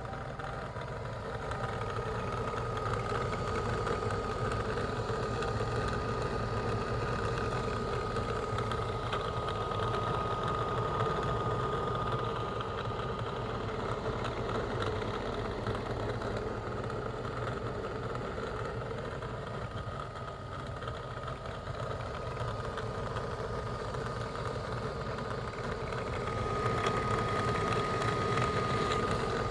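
Iris Ohyama FK-W1 futon dryer running with a rattling noise over the steady whine of its fan motor. It gets a little louder about two seconds in and again near the end. The owner later traced the rattle to loosened screws holding parts to the housing.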